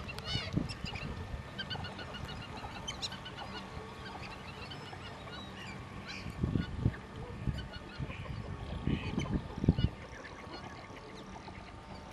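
A large mixed flock of captive ducks and geese calling over open water: honking and quacking with many short, repeated high calls. A few low rumbling bumps about six and a half and nine seconds in.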